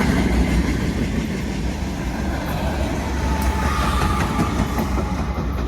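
Freight train rolling past: a steady low diesel-locomotive rumble from the train's GE distributed-power pusher unit, over the noise of wheels on the rails, slowly fading.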